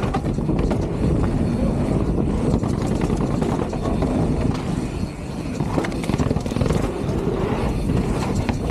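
A moving vehicle's running noise: a steady, dense low rumble with scattered faint clicks.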